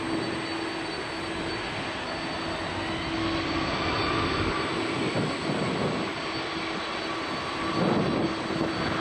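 Boeing 767-300ER's twin jet engines running with a steady roar and whine as the airliner rolls along the runway.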